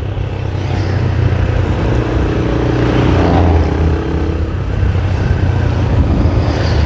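Sport motorcycle's engine running steadily while riding at road speed, with wind and road noise. A higher steady tone joins for a couple of seconds about midway.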